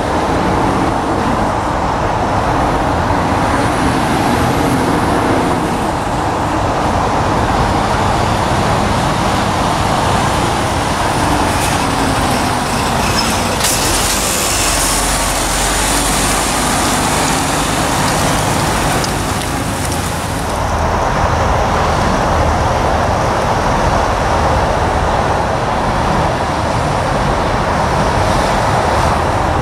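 Heavy lorry diesel engines running at low speed as articulated trucks manoeuvre in a yard, over a steady rumble of traffic. As a Mercedes-Benz Actros tractor unit passes close, a high hiss starts suddenly about halfway through and cuts off several seconds later.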